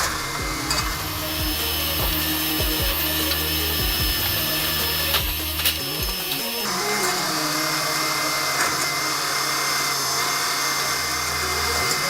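Heavy forestry machine at work: a steady engine drone under a noisy wood-cutting sound, the drone shifting pitch about six seconds in.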